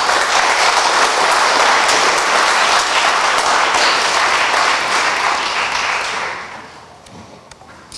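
Audience applauding, fading away about six seconds in.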